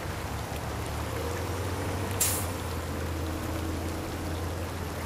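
Steady background noise with a low hum underneath, and one short hiss about two seconds in.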